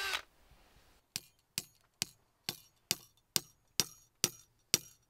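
A hammer tapping a spile into a drilled maple trunk: nine sharp strikes, about two a second, getting louder. A drill whine cuts off at the very start.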